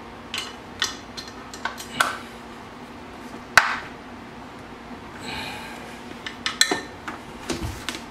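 Scattered small clicks and knocks of a hand tool and a mounting bolt against an inline skate frame as the frame is fitted to the boot, loudest about three and a half seconds in, with a quick run of clicks near the end. The bolt being worked is stripped.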